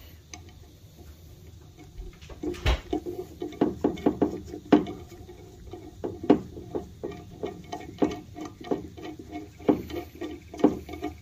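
Irregular light clicks and ticks of a steel guide-pin bolt being turned in by hand on a brake caliper bracket's guide pin, the pin shifting in its rubber boot with each turn.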